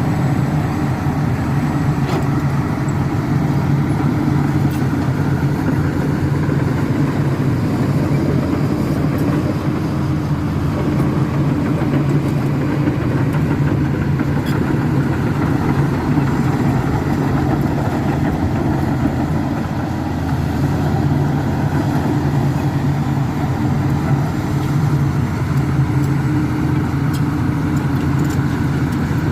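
Komatsu D85E-SS bulldozer's diesel engine running steadily, with a slight dip in level about twenty seconds in.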